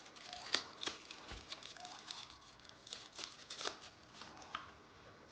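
Eating noises at close range: a steady run of small sharp clicks and smacks, several a second, from mouths and utensils as spicy noodles are eaten.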